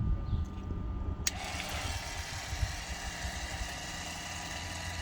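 Oil transfer pump clicking on about a second in, then running steadily, pumping thick 75W-90 gear oil through a pipe into a rear differential.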